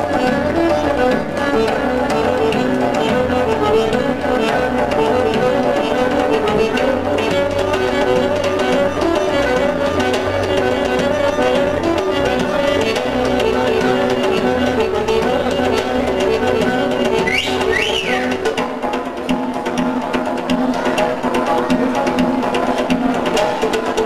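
Turkish Black Sea folk dance music: a melody over a steady drum beat, with the drum dropping out about three-quarters of the way through.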